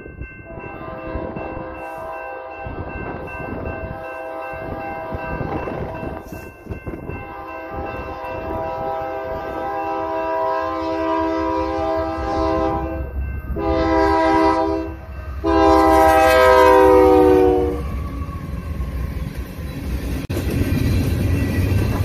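Union Pacific freight locomotive's air horn sounding the grade-crossing signal: two long blasts, a short one and a final long blast. The horn is a steady multi-note chord. After the last blast the train rolls by with a rumble and clatter of wheels on rail.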